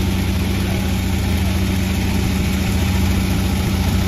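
Panda36 sawmill's engine running steadily with a constant low hum and no change in pitch.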